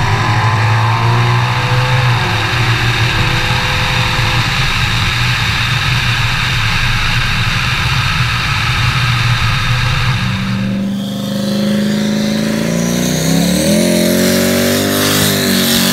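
Twin-turbo Ford Coyote V8 running at a steady pitch, heard from a camera on the car, with heavy wind and road noise. About ten seconds in the sound changes sharply to a car engine revving up, rising in pitch over a few seconds.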